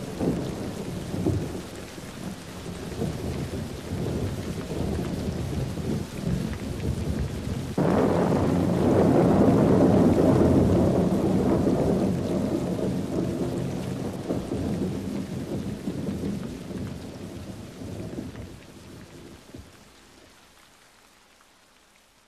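Recorded rain with thunder rumbling. A louder roll of thunder breaks in suddenly about eight seconds in, then the whole sound slowly fades away near the end.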